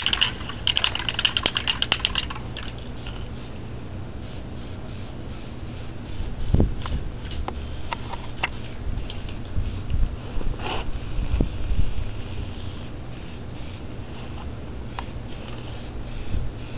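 Aerosol spray-paint can shaken hard, its mixing ball rattling rapidly for about two seconds. Then a low steady rumble with a few dull thumps, and a faint hiss of spraying.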